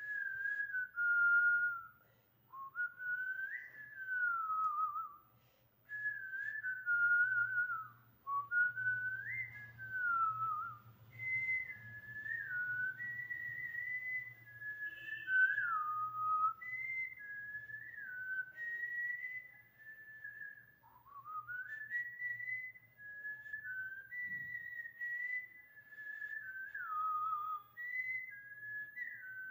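A woman whistling a song tune through pursed lips: a single clear tone in short phrases, stepping and sliding up and down between notes.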